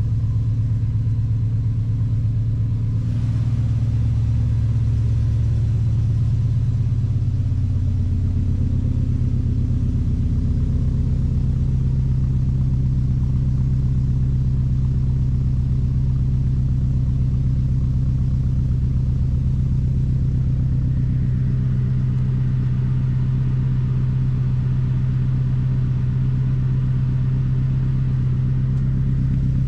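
An old car's carbureted engine idling steadily just after starting, a low even drone whose idle speed rises slightly twice in the first dozen seconds and then holds.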